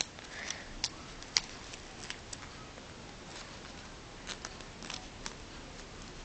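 Paper being folded by hand: scattered small crackles and ticks as a crimp fold is worked into the folded paper model. The sharpest click comes about a second and a half in.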